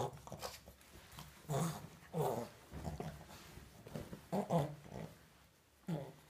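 French bulldog making about five short, low grunts as she rolls on her back and rubs herself on a towel, with the towel rustling.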